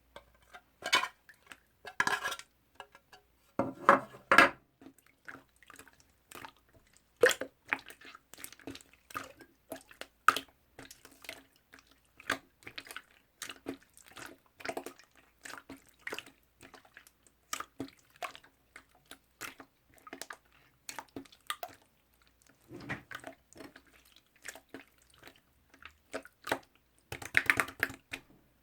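White slime being squeezed, poked and stretched by hand, making sticky, wet clicks, pops and squelches. Louder squishing comes in clusters, about a second in, around four seconds in, and again near the end.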